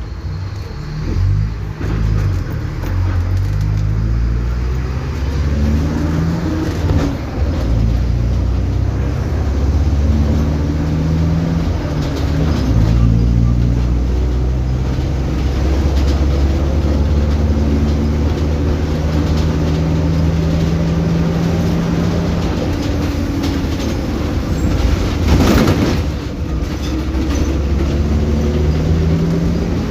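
Mercedes-Benz OF-1722M bus's 218 hp diesel engine pulling away through the gears: the pitch rises, drops at each shift and rises again, then runs steady under load. A short hiss about 25 seconds in.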